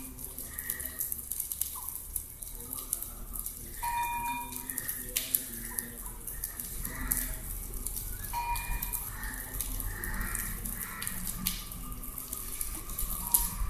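Homa fire crackling and popping in a brick fire pit, with a sizzling hiss as offerings burn.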